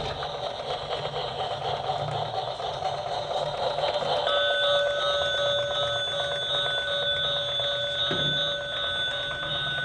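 Busy whirring noise, then from about four seconds in a steady electronic ringing tone with several pitches held together until near the end.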